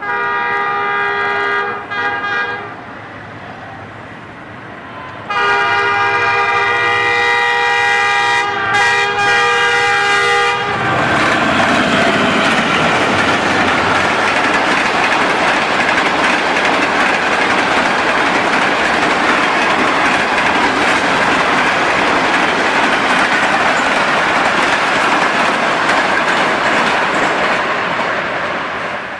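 Karachi Express diesel locomotive sounding its horn in two blasts, the second about five seconds long, as it approaches at speed. Then the noise of its coaches rushing past, loud and steady.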